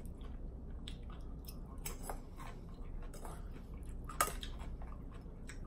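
Chewing a mouthful of salad, with small wet crunches and mouth clicks. About four seconds in, a fork clinks sharply once against the bowl as it scoops up more.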